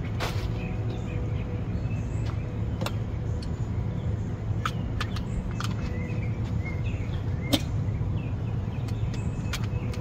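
Scattered clicks and small knocks from a nylon carry bag and a small air pump being handled in a car's cargo area, over a steady low outdoor rumble with faint bird chirps.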